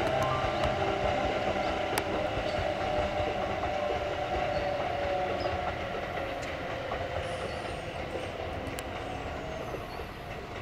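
Kintetsu train running past at a distance, its rumble fading as it moves away. A steady whine slowly drops in pitch, and a few sharp clicks come through.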